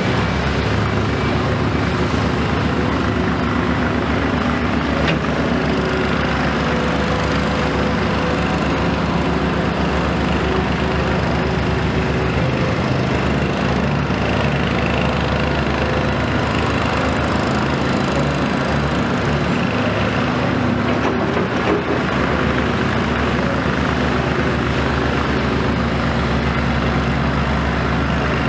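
Komatsu PC210 hydraulic excavator's diesel engine running steadily, a constant low drone with no breaks.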